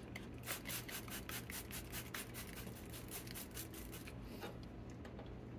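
Rubbing strokes on a circuit board, about three a second, thinning out near the end, as vinegar is scrubbed off with alcohol after treating corrosion from leaked battery acid.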